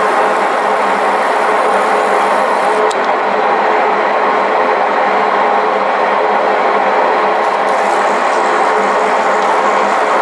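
South Bend 16 x 60 engine lathe running under power, a steady, unbroken whir of spindle, gearing and drive with a faint constant hum.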